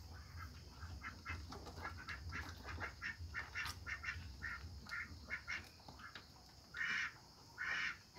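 Goat kids calling: a run of short, quiet squeaky calls, then two louder short bleats close together near the end.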